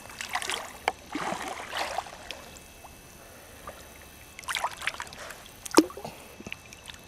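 Lake water lapping and sloshing at the surface in a few short bursts, with one sharper splash nearly six seconds in.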